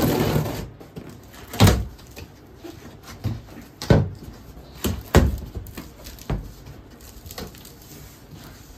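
Cardboard shipping box being opened by hand: packing tape slit with a box cutter, then the flaps pulled back with a few sharp cardboard knocks and thuds and quieter handling rustle between.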